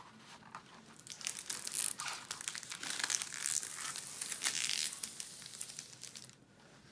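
Clear plastic protective film crinkling and crackling as it is peeled back off a diamond painting canvas's sticky glue layer. The crackles come irregularly over several seconds and die away near the end.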